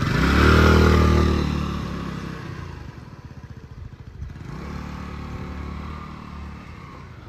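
Small motor scooter engine accelerating hard from idle, its pitch rising, then fading as the scooter rides away down the street; about four and a half seconds in the revs pick up briefly again before dying away.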